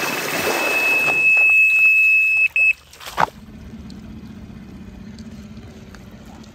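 Electronic carp bite alarm sounding one continuous high tone, the sign of a run with a fish taking line, over water lapping at the shore. The tone cuts off about two and a half seconds in with a couple of short beeps, and a sharp knock follows.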